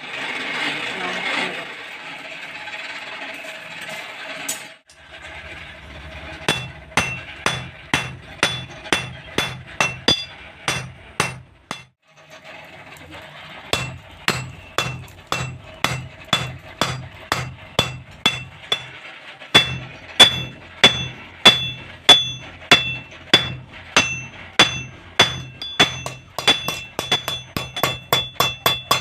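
Hammer blows on steel at an anvil in a steady rhythm of about two a second, each strike ringing metallically, as a knife blade is forged. The hammering pauses briefly about halfway through and is preceded by a few seconds of rushing noise.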